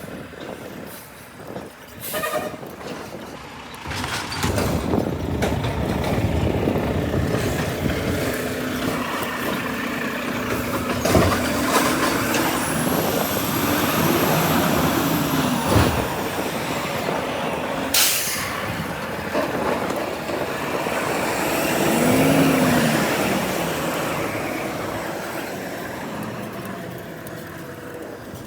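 Garbage truck running close by, its engine revving up and back down twice, with a few sharp knocks and a hiss along the way.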